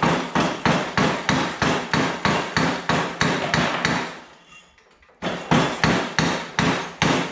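A small sledgehammer striking through a shop towel, driving an oil pump pickup tube into the pump's tight interference-fit bore. It lands fast, even blows about three a second, pauses for about a second just past the middle, then strikes a second run of about six.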